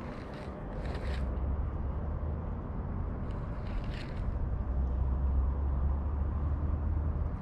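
Wind buffeting the microphone as a steady low rumble, with two brief rustling sounds, about a second in and about four seconds in.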